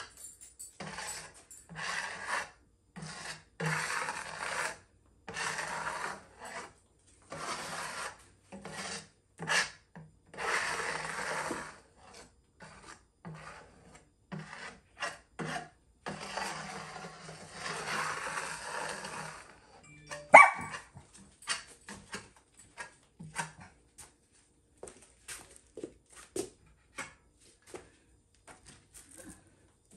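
Rough scraping and rubbing strokes, each about half a second to a second and a half long, worked along the edge of an epoxy-resin tabletop, repeating for about twenty seconds. Then a single loud sharp sound, followed by scattered light clicks and taps.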